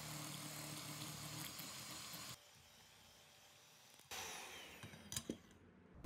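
Electric hand mixer running with a steady whir, its beaters whipping butter, sugar and eggs into a batter; the sound cuts off about two and a half seconds in. A fainter stretch with a couple of small knocks follows near the end.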